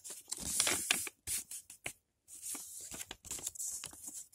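Sheet of paper rustling and crinkling as it is handled and folded, in short irregular bursts with a brief pause about two seconds in.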